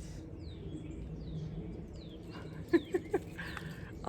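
Small feeder birds chirping: a string of short, high, falling chirps, then three sharp short knocks a little before three seconds in, the loudest sounds.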